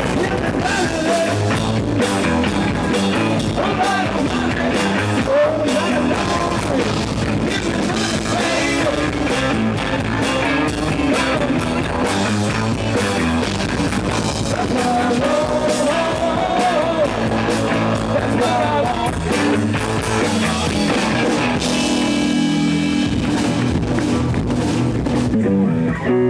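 Rock band playing live: electric guitar, bass and drums vamping on one chord in an instrumental stretch, with gliding lead lines. Near the end the drum hits thin out and held chords ring.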